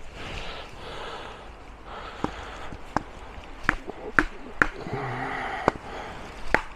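A wooden baton knocking on the spine of a folding knife as it is batoned down through a piece of wood: about seven sharp knocks from about two seconds in, with heavy breathing from the effort.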